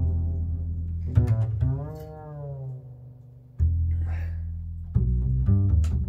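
Background music with low plucked and bowed string notes, quieter for a moment in the middle.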